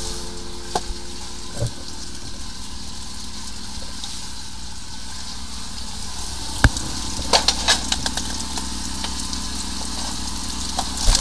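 High-pressure drain-jetting machine running: a steady low engine hum under the hiss of water spraying, with a few sharp knocks about two-thirds of the way in.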